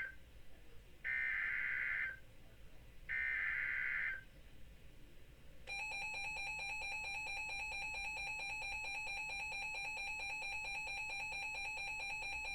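Emergency Alert System broadcast: the end of one SAME header data burst, then two more buzzy digital bursts of about a second each, two seconds apart. About six seconds in, the steady two-tone EAS attention signal begins and holds, announcing a new alert.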